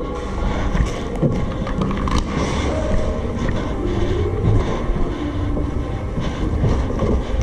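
Wind buffeting the microphone in a steady low rumble, with a few sharp clicks or cracks scattered through it.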